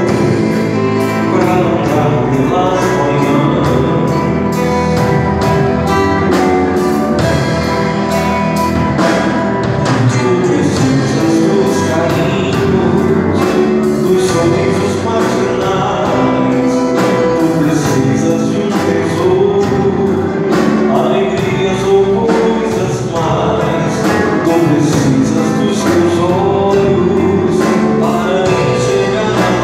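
Live band playing a gospel song: singing over instruments and a drum kit keeping a steady beat.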